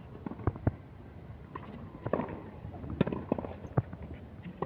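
Tennis rally on a hard court: several short sharp pops of the ball being struck by rackets and bouncing on the court, irregularly spaced over a low outdoor background.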